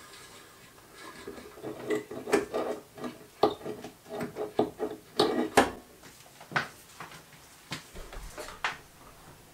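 Small metal machine vise being slid, turned and set down on a drill press's metal table: a series of clanks and scrapes, about a dozen knocks, some ringing briefly.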